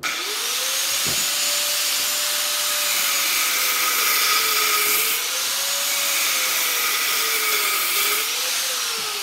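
A handheld power tool with an abrasive cut-off wheel is cutting through the copper windings and steel core of a vacuum cleaner motor. It starts abruptly, and its whine dips and recovers several times as the wheel bites. It fades near the end.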